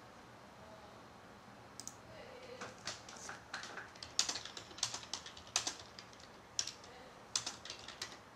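A quick, irregular run of light clicks, starting about two seconds in and stopping just before the end.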